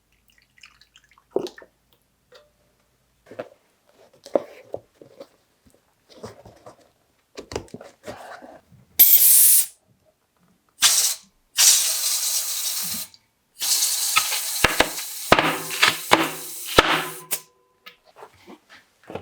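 Quiet clicks and knocks of parts being handled, then several loud bursts of hissing spray or rushing air, the longest lasting about four seconds, with sharp clicks among them.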